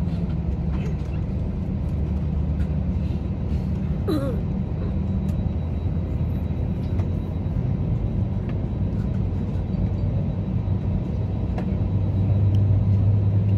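Steady low engine rumble heard from inside a vehicle, growing louder near the end.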